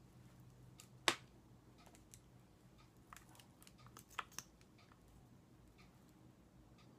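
Makeup being handled: a sharp click about a second in, then several lighter clicks and taps between about three and four and a half seconds in, such as cosmetic cases and applicator caps being opened, closed and set down, over a faint steady hum.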